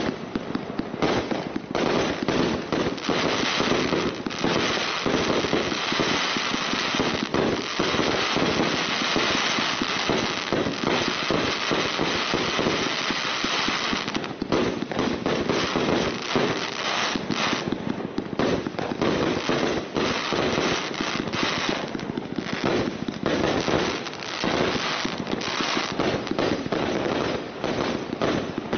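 200-shot consumer firework battery (cake) firing in rapid succession: a near-continuous stream of launch shots and bursting pops in the first half, then shots coming more separately with short gaps from about halfway on.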